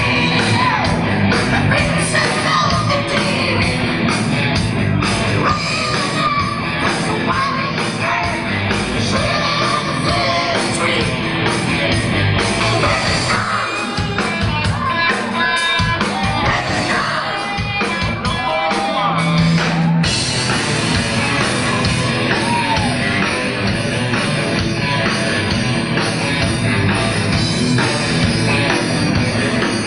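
Live rock band playing loud, with electric guitars, bass and a drum kit under a singer's sung and shouted vocals.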